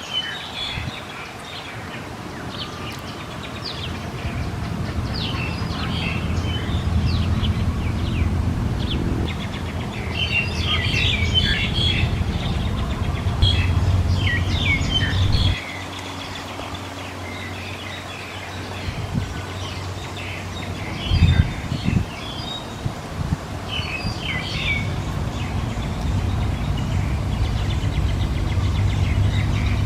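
Small birds chirping in quick, short calls over a steady low rumble. The rumble drops off suddenly about halfway through.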